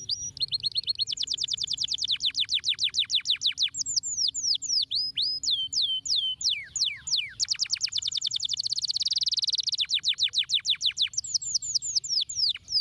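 Yellow domestic canary singing a continuous song: fast trills of rapidly repeated notes, a run of separate falling whistled notes in the middle, and a dense buzzy roll about three-quarters of the way through. The song breaks off at the very end.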